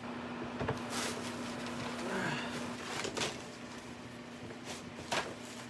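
Plastic shopping bags and papers being rustled and handled, with three short clatters, over a steady low hum.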